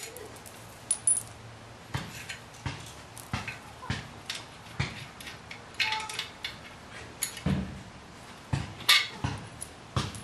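Irregular light clicks and clinks of small steel bolts, nuts and washers being handled and set down on a concrete floor, mixed with knocks from handling the trike frame and its cables.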